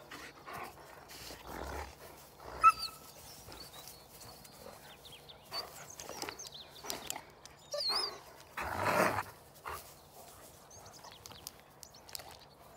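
Two dogs playing rough, with scattered short vocal sounds between them; the loudest is a sharp one a little under three seconds in, and a longer one comes about nine seconds in.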